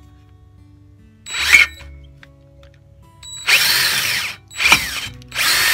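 Power drill with a 23/64" bit drilling out a stripped caliper bolt hole to take an M9x1.25 helicoil. It runs in four bursts: a short one about a second in, a longer one past the middle, a brief one just after, and a long run starting near the end, with the motor's pitch changing as it runs.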